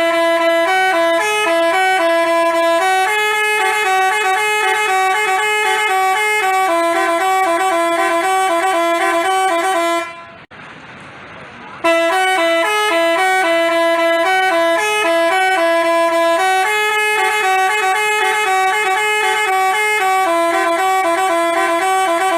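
Basuri telolet musical bus horn playing a multi-note tune. It breaks off about ten seconds in for under two seconds, then the same tune plays again.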